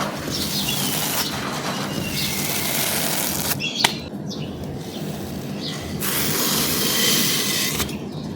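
Brittle dry material crumbling and crunching in a continuous crackle, with abrupt cuts between takes about three and a half, six and eight seconds in, and one sharp snap near the first cut.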